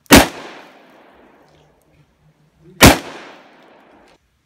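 Two gunshots about two and a half seconds apart, each sharp report followed by an echoing tail, fired in a shooting test of armored police-car door glass.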